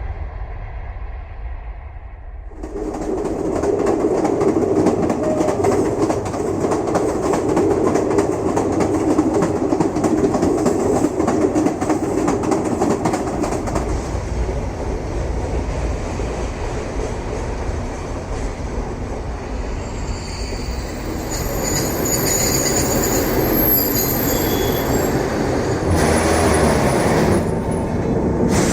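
A train running on its track: a steady rumble of wheels on rails that grows suddenly louder about three seconds in. Thin, high wheel squeal joins it in the later part.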